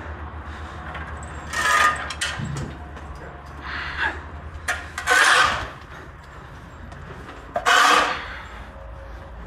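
Four short rasping scrapes a second or two apart, like a shovel or fork working through packed manure and bedding, over a low hum that stops a little after halfway.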